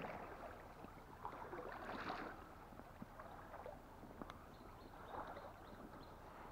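Faint river water flowing and sloshing, swelling twice, with a few small clicks.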